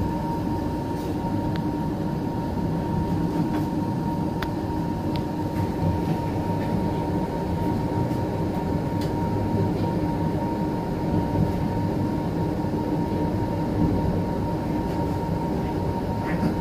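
Passenger train carriage running along the rails, heard from on board: a steady rumble with a constant high hum and a few light clicks.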